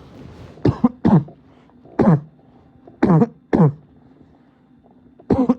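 A man's barking cough: about six harsh coughs in uneven groups, each a short burst that drops in pitch.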